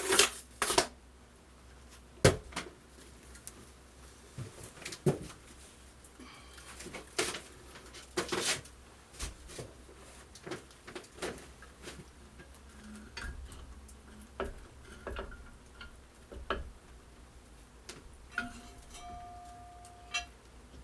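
Scattered metallic clinks and knocks as a heavy cylinder head and tools are handled during a head install on a Volvo Penta 2003T engine. A short steady tone sounds near the end.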